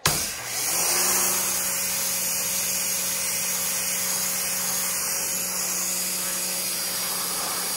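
Pressure washer cutting in suddenly at the squeeze of the trigger, then running steadily: the loud hiss of the high-pressure spray striking a canoe hull over the steady hum of the pump.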